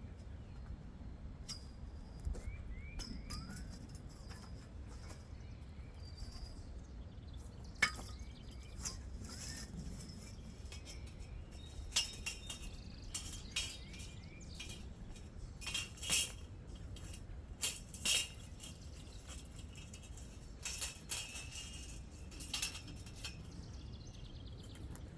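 Scattered light metallic clinks and taps of tools and metal parts being handled, coming more often from about eight seconds in.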